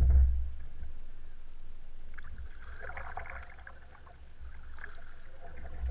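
Double-bladed kayak paddle dipping into the water in a few strokes, the blades splashing and dripping, over a steady low rumble. A louder low rumble fades away in the first half second.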